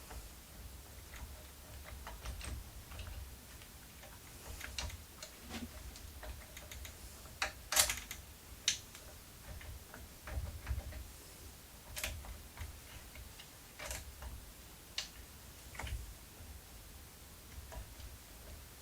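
Scattered light clicks and taps of small parts being handled and fitted by hand during CNC router assembly, with a sharper pair of knocks a little before halfway.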